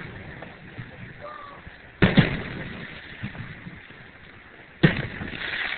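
Aerial firework shells bursting: a sharp double boom about two seconds in, then another loud boom near the end, each trailing off.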